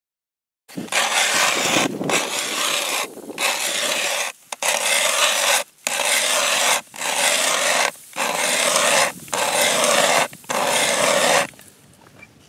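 Hand-cranked ice auger boring through lake ice: a loud grinding rasp of the blades shaving ice. It starts about a second in, breaks off briefly about once a second, and stops near the end.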